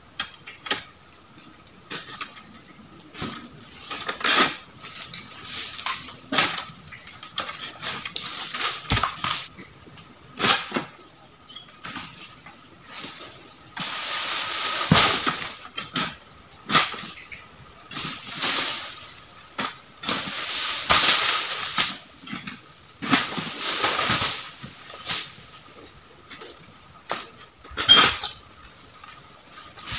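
Steady high-pitched drone of insects in an oil palm plantation, broken by irregular sharp knocks and short rustling stretches from a long-poled harvesting sickle (egrek) cutting at the palm's fronds.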